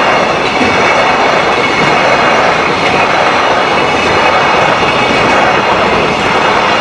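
Passing train: a steady, loud rush of wheel and running noise.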